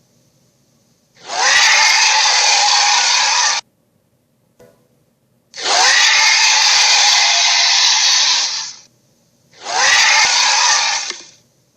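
Dragon Funko Pop toy playing rasping dragon roar sound effects through its small speaker. There are three roars, each lasting a couple of seconds, with a brief click between the first two.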